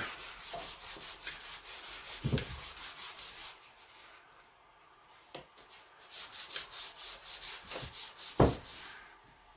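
Rapid back-and-forth hand sanding on a plastic trim piece, about six strokes a second, stopping for a couple of seconds midway and then resuming. A low knock about two seconds in and a louder one near the end.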